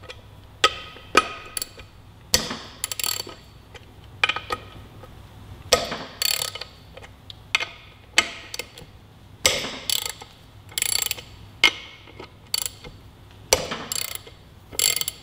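Hand ratchet with a 14 mm socket clicking in short runs of strokes, about one run every second or so, as the locking nuts holding the motorcycle's rear sprocket to the wheel's sprocket carrier are backed off.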